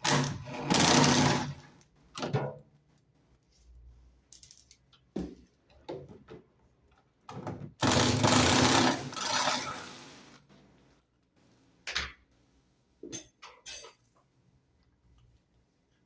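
Work on the underside of a washing machine to take off the belt guard: two noisy mechanical stretches of about two seconds each, one at the start and one about eight seconds in, with scattered clicks and knocks of tools and plastic parts in between.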